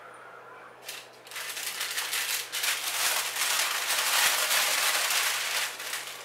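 Hard, dry roasted acorns rattling and clattering in a dense run of small clicks. It starts about a second in, is loudest in the middle and dies down near the end.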